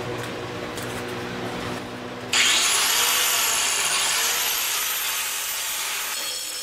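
Angle grinder cutting in suddenly about two seconds in, grinding steel off the pipe wrench's teeth and threads: a loud rasping with a high whine that rises, dips briefly under load and climbs again, slowly fading. A steady low hum runs beneath it before the grinding starts.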